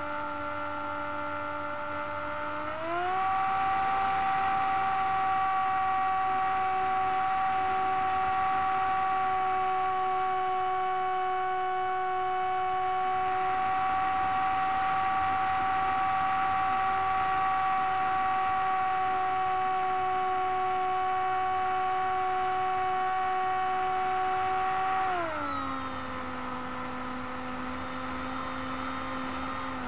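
Motor and propeller of a radio-controlled seaplane, heard from its onboard camera, whining steadily in flight. The pitch steps up about three seconds in as the throttle opens, holds, then drops about five seconds before the end as the throttle is eased back.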